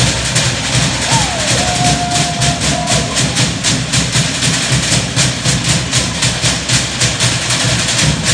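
Polynesian log drums (pate) beaten in a fast, even rhythm, the beats becoming more distinct about halfway through.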